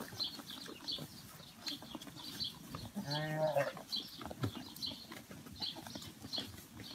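A lamb bleats once, about three seconds in, over the soft rustling and crunching of lambs and a piglet feeding on alfalfa hay in a trough.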